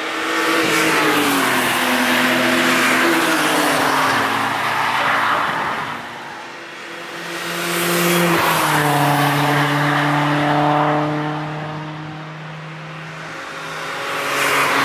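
Cars passing one after another through a racetrack corner, the first a BMW E36 3 Series Compact. Each engine note drops in pitch as the car slows into the bend, then holds steady as it goes by. A third car approaches near the end.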